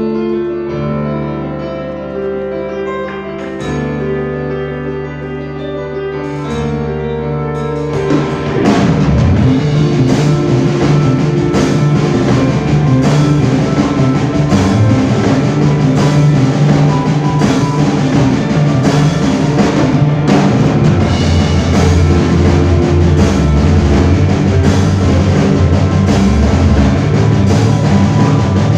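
A live rock band playing: held keyboard chords at first, then about eight seconds in the drum kit and the full band come in loud and keep going with a steady beat.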